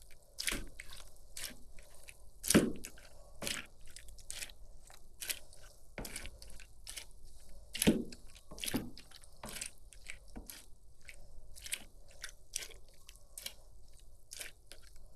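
Wine grapes being squashed by hand in a bucket into must: irregular wet squelching and crunching with little pops, and a couple of louder knocks about two and a half and eight seconds in.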